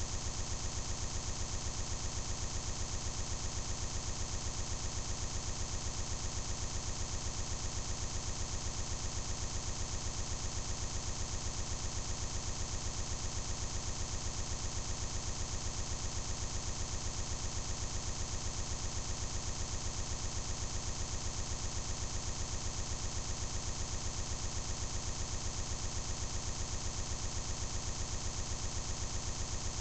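A steady, unchanging buzz with a fast, even pulse: a digital glitch from a corrupted stretch of the recording, where the audio is stuck repeating.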